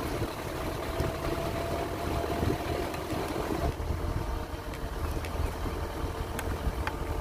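A vehicle's engine running as it drives up a narrow hill road, with a steady low rumble of road and wind noise. A faint whine drops in pitch about halfway through.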